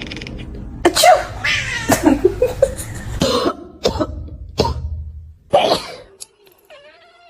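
A person coughing repeatedly, about half a dozen harsh coughs. Near the end a cat answers with one long, wavering meow.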